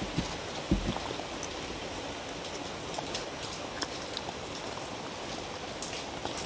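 Dog chewing and crunching food from a wooden bowl: scattered soft clicks and a low thump just under a second in, over a steady rain-like hiss.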